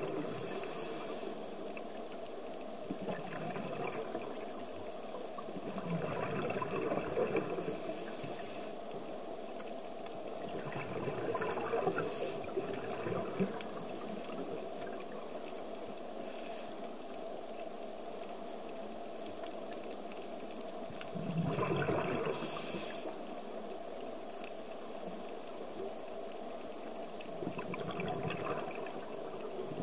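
Underwater sound picked up through a camera housing: a scuba diver's regulator breathing, with a hiss on the inhale and a rush of exhaled bubbles every several seconds, the loudest bubbling about three quarters of the way through.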